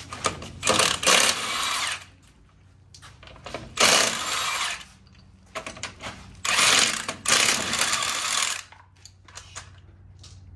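Cordless impact wrench hammering on a truck wheel's lug nuts in several bursts of a second or two each, with short pauses between them as it moves from nut to nut.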